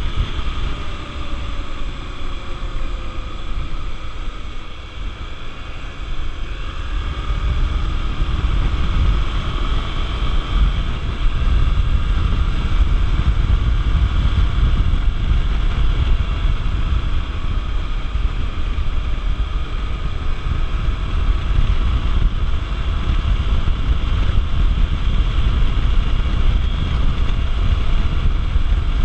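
Honda XR 250 Tornado's single-cylinder engine running on the move, its pitch rising and falling with speed, under heavy wind rumble on the microphone.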